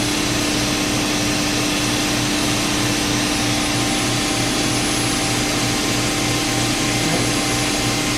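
BostoMatic dual-spindle vertical machining center running with its spindles turning at about 1,000 RPM: a steady machine hum with a constant tone over a hiss.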